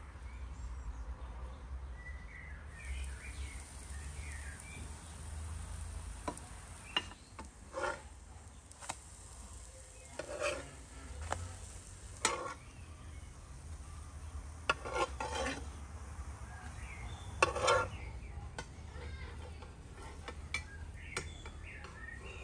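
Pancakes frying in a pan with a faint sizzle, while a metal spatula clinks and scrapes against the pan a dozen or so times, loudest near the end.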